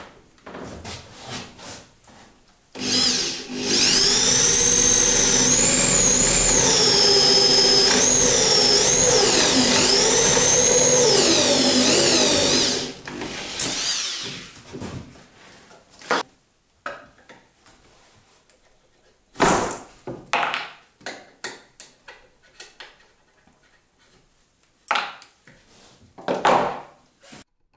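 Electric drill boring a dowel hole into a softwood pine block, its motor whine rising and falling with the load for about ten seconds. Afterwards, a few short knocks and clicks as the wooden pieces are handled on the bench.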